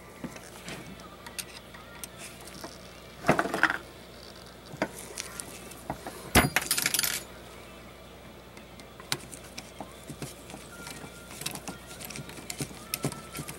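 Steel rifle action and small parts handled on a wooden bench, with a screwdriver worked in the action's screw: scattered metallic clicks and clinks, a brief rustle about three seconds in, and a sharp knock about six seconds in, the loudest sound. Quick small ticks run thicker near the end.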